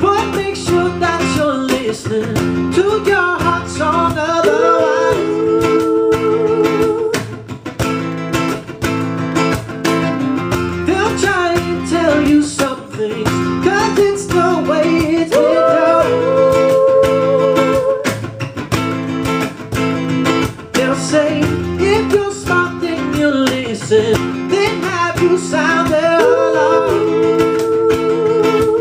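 Live acoustic folk song: two acoustic guitars strummed and picked, with voices singing a melody over them in long held notes.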